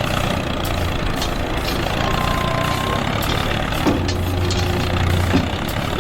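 A small engine running steadily, its low hum swelling and easing a little.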